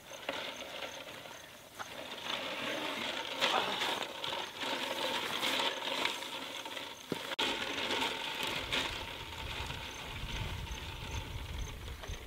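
Cooking water pouring and splashing out of a large aluminium pot of boiled eggs as it is tilted to drain, with a few light knocks of the pot and a low rumble joining about eight seconds in.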